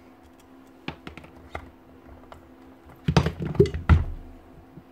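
Gears and parts of an opened Hilti TE905 demolition hammer's gearbox clicking and clattering as they are handled and lifted out. There are a few light clicks first, then a denser clatter with two louder knocks about three seconds in.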